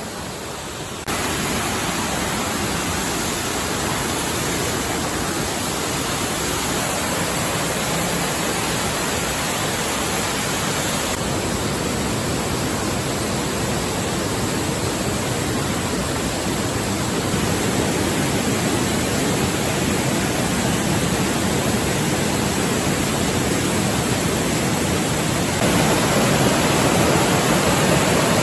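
Mountain valley stream rushing, a steady even wash of water noise that jumps louder about a second in, again partway through and once more near the end.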